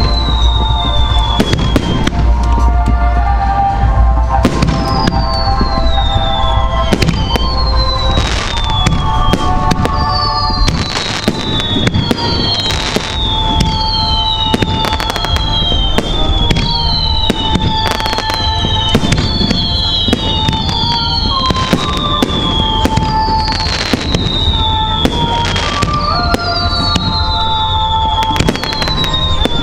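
Aerial firework shells bursting over water, many bangs in quick succession, with music playing along with the show. A falling tone repeats every second or two.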